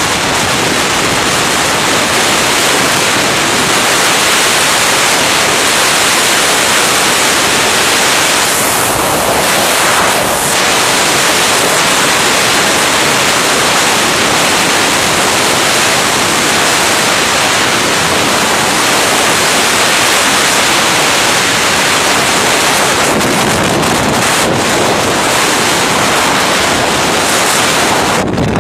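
Bura, a gale-force katabatic wind, blasting straight onto a phone's microphone: loud, steady wind noise with no letup.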